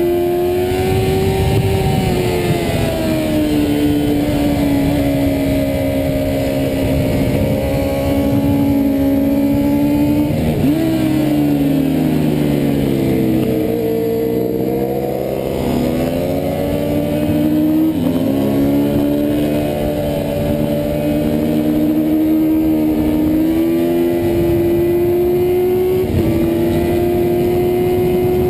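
Yamaha FZR400RR 3TJ's inline-four racing engine heard onboard at high revs: it pulls down a straight with an upshift a few seconds in, drops down through the gears with throttle blips about ten seconds in, runs lower through the corner, then climbs in pitch as it accelerates out, shifting up once more near the end. Steady wind rush underneath.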